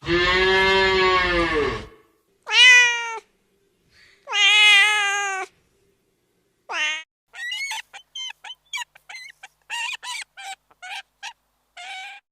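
Domestic cat meowing: a long low call at the start, two drawn-out meows, then a quick run of short, high mews.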